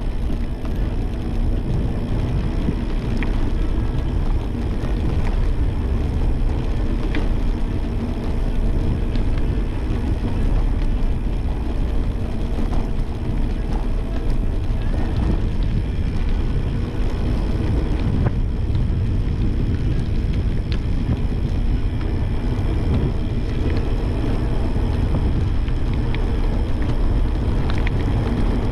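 Wind buffeting the microphone of a handlebar-mounted camera on a moving bicycle, mixed with the rolling of tyres over rough asphalt: a steady, loud rushing noise with a few faint ticks now and then.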